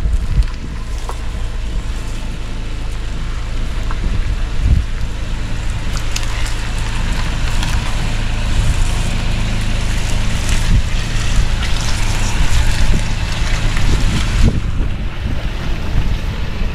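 Car, a Fiat Pulse, driving slowly over a muddy, waterlogged stretch of dirt road: the engine runs low under rough tyre and mud noise, with wind noise on the microphone. The rough noise grows louder from about six seconds in and eases near the end.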